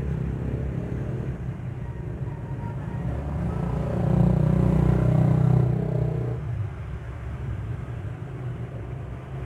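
Low rumble of road traffic, swelling about four seconds in and easing off after six, as a vehicle goes by.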